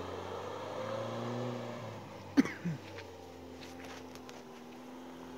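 Lada Niva's engine revving up and easing off as it drives through deep mud and water, its pitch rising and falling. A sharp knock sounds about two seconds in.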